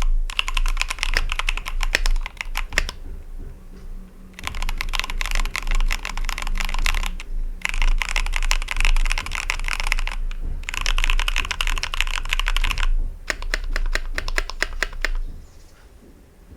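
Fast typing on a 60% mechanical keyboard with an aluminium case and steel plate, fitted with factory-lubed Akko Jelly Black linear switches and SA-profile keycaps: bursts of rapid keystrokes a few seconds long with short pauses between, thinning out and stopping shortly before the end.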